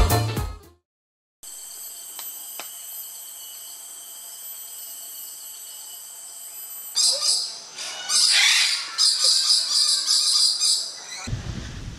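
A steady, high-pitched drone of rainforest insects, then about seven seconds in loud bird calls take over: a busy run of high chirps and squawks.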